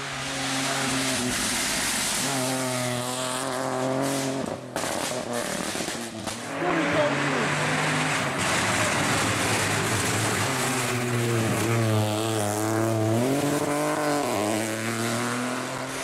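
Rally car engine revving hard, its pitch climbing and dropping repeatedly with gear changes and lifts for corners. The sound breaks off abruptly a couple of times around five to six seconds in.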